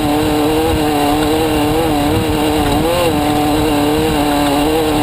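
A vehicle engine running at a steady speed, its pitch wavering slightly and rising briefly about three seconds in, over a rough low rumble.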